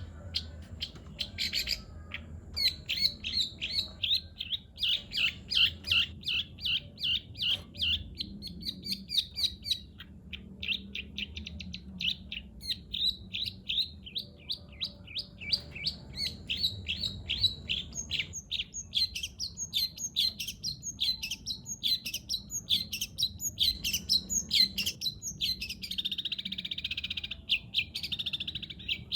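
Long-tailed shrike (cendet) singing a long, rapid run of sparrow-like chirps, its mimicry of the Eurasian tree sparrow, at roughly three to five chirps a second; near the end the chirps run together into a continuous buzzy trill.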